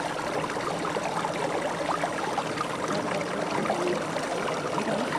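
Shallow, partly frozen mountain stream running over rocks: a steady rush of water with many small gurgles and trickles.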